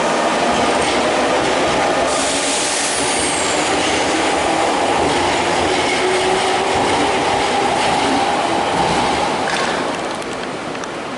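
Nankai 11000 series limited express electric train running along the platform: steady rolling noise of wheels on rail with a wavering whine over it. The sound drops a little about ten seconds in.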